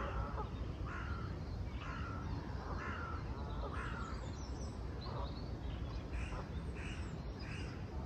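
Birds giving short, harsh calls, one after another about once a second. Fainter high chirps from small birds join in the second half, over a steady low rumble.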